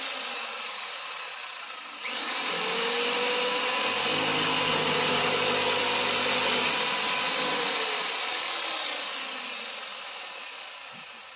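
Corded jigsaw with a coarse wood-cutting blade sawing a slot into a wooden board: a steady motor whine over the rasp of the blade in the wood. The level jumps up about two seconds in, holds steady, then tails off slowly over the last few seconds.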